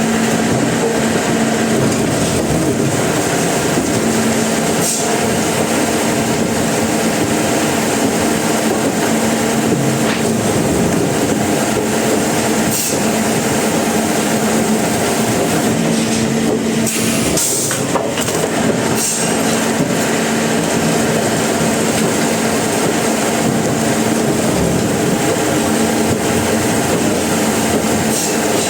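Sawmill machinery running steadily: a constant motor hum under an even rushing noise, with a few faint clicks.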